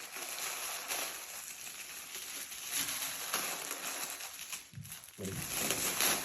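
Crinkling and rustling of plastic packaging and clothing being handled as a pair of jeans is unwrapped, in irregular crackles.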